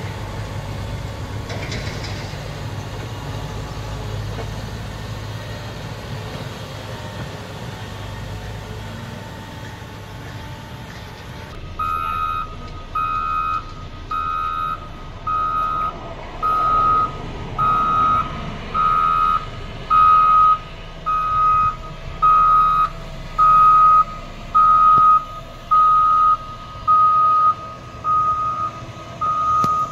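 Caterpillar 120 motor grader's diesel engine running steadily. About a third of the way in, its reversing alarm starts beeping about once a second, with the engine under it.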